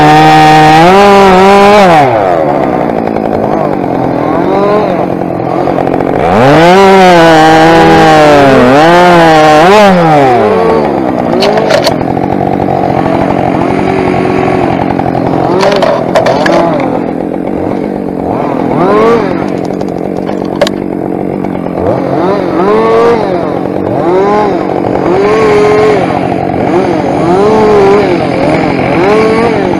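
Husqvarna 572 XPG two-stroke chainsaw cutting through a spruce log at full throttle, then dropping to idle about two seconds in. It revs hard again for a few seconds, then idles with short throttle blips.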